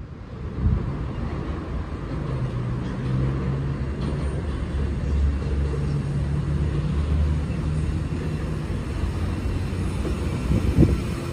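Sydney Trains C set double-deck electric train, a chopper-controlled set, running past close by with a steady low hum. A few sharp clacks come near the end.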